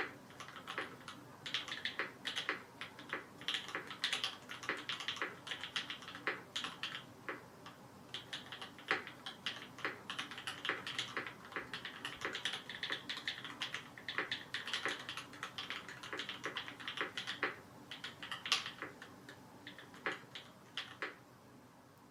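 Slow typing on a Perry Mc65 mechanical keyboard with lubed BCP switches (H1 bottom housings, Kailh black stems, vintage 1991 Cherry tops), GMK keycaps and an anodized aluminium plate: a steady run of keystroke clicks that stops near the end.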